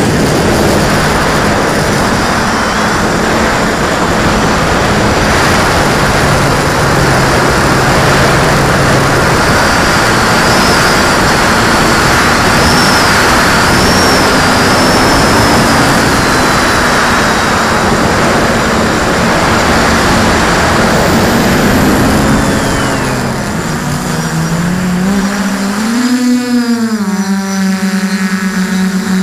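Quadcopter's brushless motors and propellers running at speed, with heavy rushing air noise on the on-board camera's microphone; the motor pitch wavers as the throttle changes. About three-quarters of the way through the rushing noise drops away and the motor whine is heard clearly, sliding up and down in pitch.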